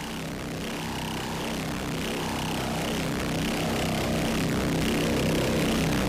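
A steady engine drone, growing gradually louder.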